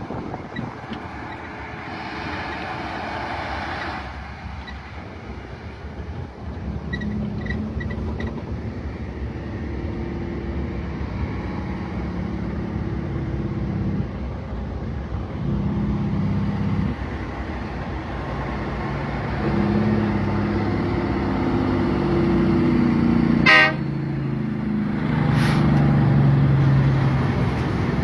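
Caterpillar C15 diesel in a Kenworth W900L truck pulling a heavy load, its drone stepping in pitch through gear changes and growing louder, with horn toots from the truck.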